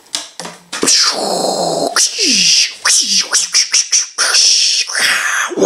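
A man doing a beatboxed drum roll with his mouth: a held hum with hissing over it, then a fast run of short clicks, pops and hisses.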